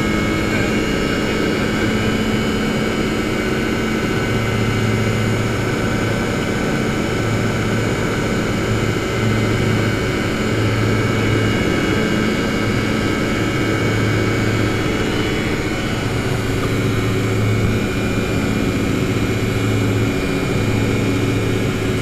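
Typhoon TL-32 ultralight aircraft in flight, its engine and propeller droning steadily with wind rushing past the open cockpit. A low hum swells and fades every second or two.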